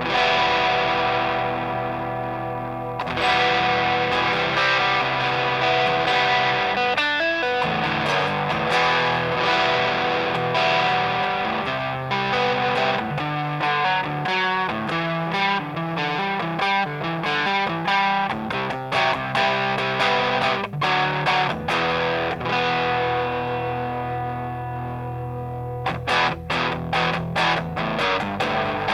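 Electric guitar played through a Feng Drive overdrive pedal, a clone of a popular boutique overdrive: distorted chords left to ring and single picked notes, with a long held chord fading near the end, followed by quick rhythmic picking.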